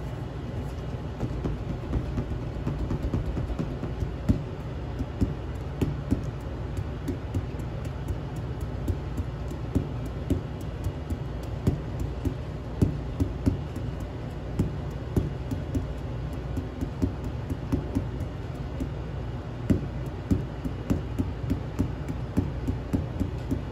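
A rubber balloon being handled and batted, giving scattered light taps at irregular intervals, over a steady low rumble.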